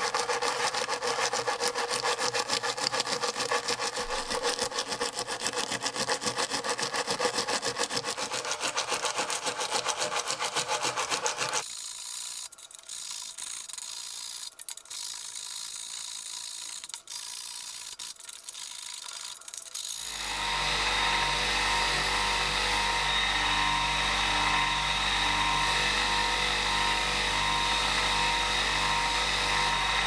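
A brush scrubbing rust off a small pocket knife in a foamy bath, with fast rasping strokes. About twelve seconds in it turns quieter, with a few knocks against a metal tray. From about twenty seconds in, a bench buffing machine's electric motor hums steadily.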